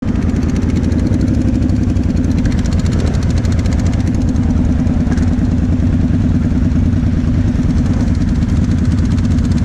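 Quad bike (ATV) engine idling steadily, heard up close from the rider's own machine.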